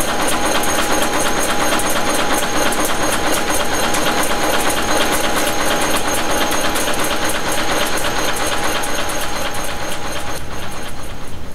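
Manek N-2 wire nail making machine running: a rapid, even mechanical clatter from its cutting and heading strokes, over a steady hum. Near the end the clatter stops and a steady hiss remains.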